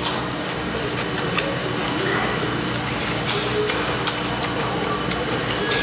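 Close-up eating sounds: chewing, with scattered small clicks of chopsticks and spoons on bowls, over a steady room hum.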